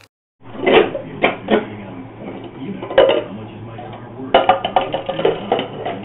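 Red plastic party cups clacking against each other and a hard countertop as they are quickly stacked and unstacked, in an irregular run of sharp clicks, with music playing. The sound starts about half a second in.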